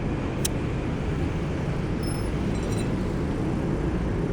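Steady low outdoor rumble, with one sharp click about half a second in.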